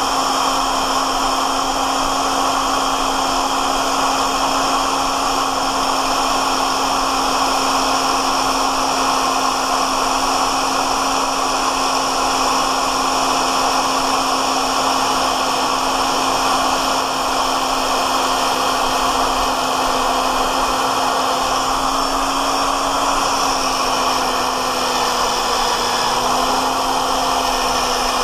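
Magnetic drill press motor running steadily as a Walter HSS split-point twist bit cuts dry, without lubricant, into a hardened SAE 4140 steel hammer head. The bit is under load and throwing off curled steel chips. The motor's pitch sags slightly about three-quarters of the way through.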